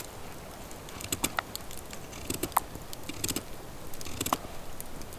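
Knife cutting a carrot into thin slices: a series of short, crisp snaps at uneven intervals.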